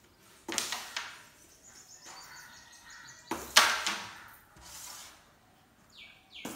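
Carrom striker flicked across a Carrom 720 board, clacking into the coins: a few sharp clicks and knocks, the loudest about three and a half seconds in.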